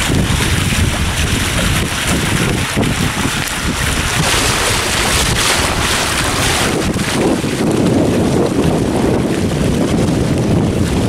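Strong wind buffeting the microphone over water rushing and splashing past the hulls of a Hobie Tiger catamaran sailing fast. The noise is loud and steady, its hiss giving way to a deeper rush about seven seconds in.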